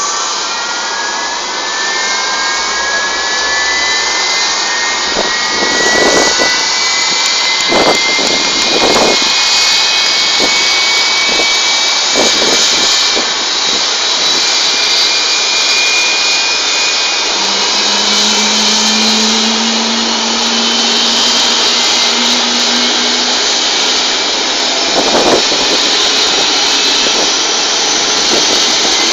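A twin-engine widebody jet's engines whining during pushback. Several whining tones climb in pitch over the first ten seconds or so as the engines spool up, then settle into a steady high whine over a loud rush. A few dull thumps come near the start and again near the end.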